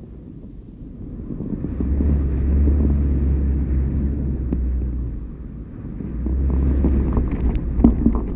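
Wind buffeting the microphone of a GoPro HD2 slung from a kite line, a low rumble that swells and fades with the gusts. A few light knocks near the end.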